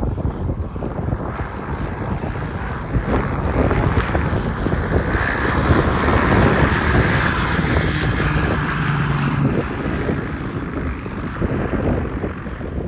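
Strong, gusty storm wind buffeting the microphone in a loud, continuous rush, with a brief steady low hum about eight seconds in.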